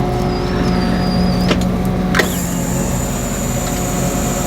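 Tractor engine running steadily while the large square baler's hydraulics cycle the bale-pushing dogs: a thin wavering whine for the first second or so, two sharp clicks about half a second apart, then a steady high whine after the second click.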